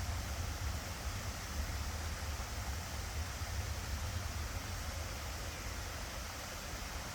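Steady outdoor noise, an even hiss over a low rumble, with no birdsong to be picked out.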